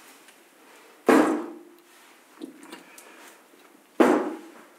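Two heavy clunks about three seconds apart, the first with a brief ring: the TU-8200R's output transformers being set down on the amplifier's metal chassis, with faint handling noise between them.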